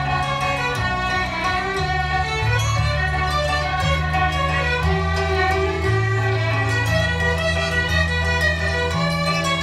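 A fiddle ensemble of many violins playing a waltz in unison, over a sustained low bass line that moves to a new note about once a second.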